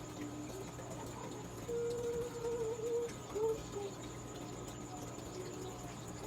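A child humming a few soft wavering notes to herself, about two seconds in, over a steady low background hum.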